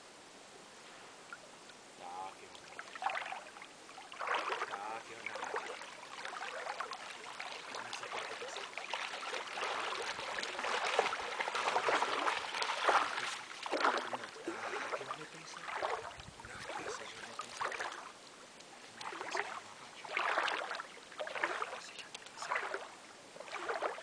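English cocker spaniel paddling and splashing through the water with a duck in its mouth, a run of irregular splashes that grows busiest about halfway through as it reaches the shallows, then comes in scattered bursts.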